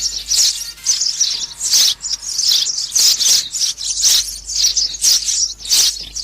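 Sparrows chirping, a steady run of loud, short, high chirps repeating two or three times a second.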